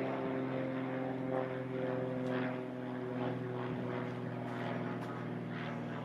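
Electric power tool motor running steadily with a constant hum, with repeated rasping surges on top.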